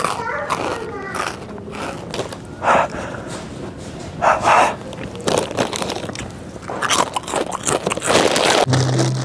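A person chewing potato chips loudly with the mouth open: several short crunching bursts a second or two apart, the longest near the end, with a brief voice in the first second.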